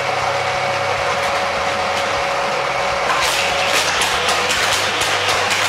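Battery-powered booster motors of a Hot Wheels Corkscrew Crash track whirring steadily at a constant pitch. From about three seconds in, toy cars clack through the boosters roughly three times a second.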